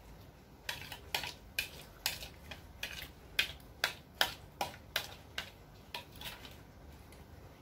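Spoon scraping and clinking against a plate while eating, a quick irregular series of about fifteen short scrapes and clicks that start just under a second in and thin out after about six seconds.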